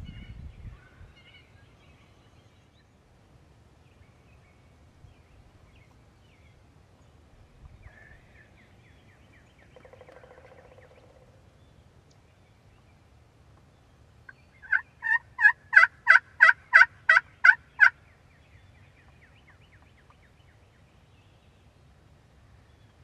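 Wild turkey calling: a quick, even run of about a dozen short yelp-like notes over about three seconds, loud against quiet woods.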